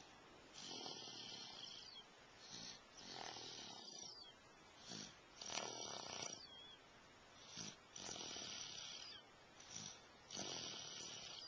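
Rhythmic snoring: a long, hissing breath about every two and a half seconds, each coming just after a short one.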